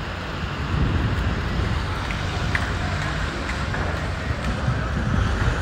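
City street ambience: a steady low rumble of traffic with a few faint clicks.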